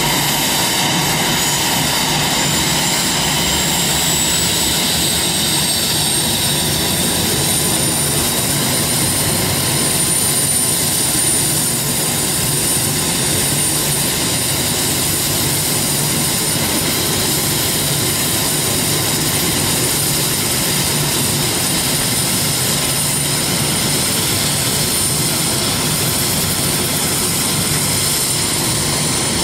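Bell 430 helicopter's twin Rolls-Royce 250 turboshaft engines spooling up at startup: a thin, high turbine whine climbs in pitch over the first several seconds and then holds steady over a loud, even rush of engine noise.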